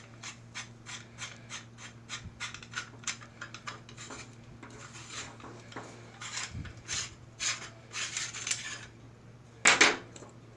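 GW5188 dome security camera being twisted out of its outer locking ring by hand: a long run of quick, irregular clicks and scraping as the housing parts turn against each other, then two loud knocks close together near the end.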